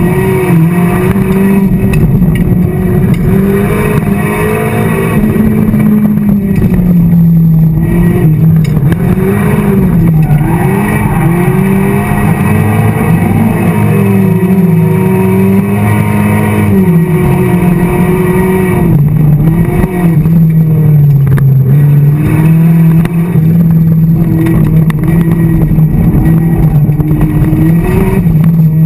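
A 1990 Mazda Miata's 1.6-litre four-cylinder engine, heard from inside the cabin under hard driving. It is loud, and its revs climb and drop back again and again.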